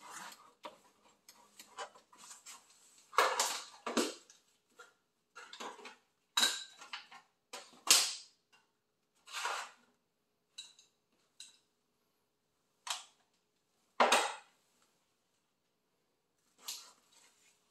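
Hand tools and metal parts being handled during car repair work: a dozen or so separate sharp clicks and clinks at irregular intervals, with silence between them.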